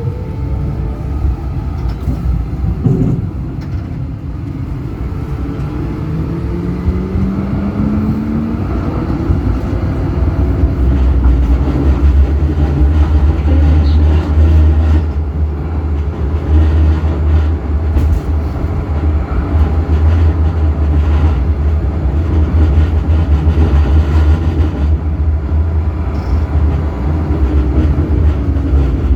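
Tram running on its rails: the electric traction motors whine up in pitch as it accelerates over the first several seconds, then a loud steady low rumble of wheels on track sets in.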